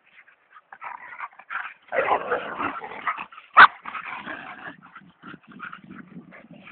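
Several dogs playing rough together, growling and scuffling, busiest about two seconds in, with one short sharp yelp about three and a half seconds in.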